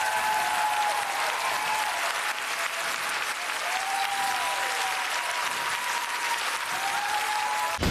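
Studio audience applauding, with several drawn-out calls rising and falling above the clapping.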